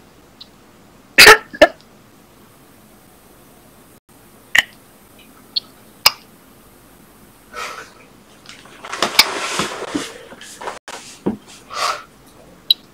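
Scattered short, sudden sounds in a small room: a loud cough-like burst about a second in, a few sharp clicks, and a longer noisy rustle near the middle.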